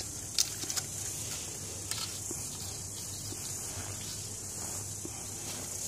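A few light clicks and taps from a bottle of powdered sulfur being tipped and shaken over a plant, in the first couple of seconds, over a steady high hiss.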